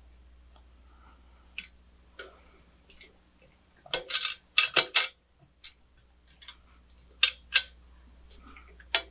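Sharp metallic clicks and clinks as a Tial external wastegate and its V-band clamp are fitted by hand onto a stainless steel exhaust header. The loudest are a quick run of several clinks about four to five seconds in and two more near seven seconds.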